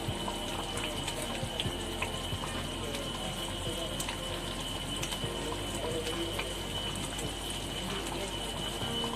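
Kuzhambu simmering in a pan on the stove: a steady bubbling hiss, with small taps and plops as steamed lentil balls are dropped into it one by one.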